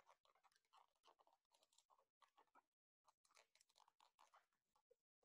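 Very faint, quick crinkling and rustling of craft materials being worked by hand, with a short pause partway through.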